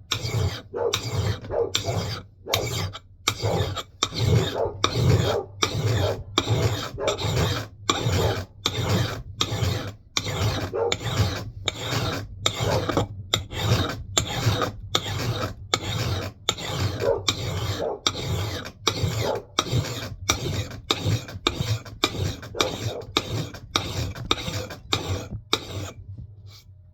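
Hand file rasping across the bit of a Mann Edge Tool Company knot clipper axe head, in even push strokes about one and a half a second, to sharpen it into a chopping edge. The strokes stop near the end.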